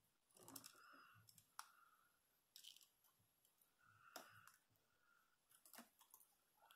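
Near silence with a handful of faint clicks and light rustles as fine beading wire and glass seed beads are handled.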